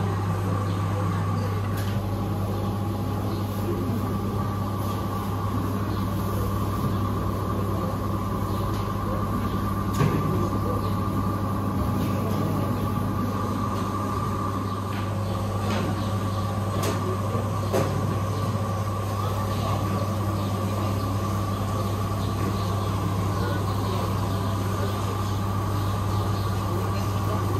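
Steady hum of supermarket refrigeration and ventilation machinery around a chilled fish counter, a deep even hum with a fainter higher tone over it. A few faint knocks around the middle.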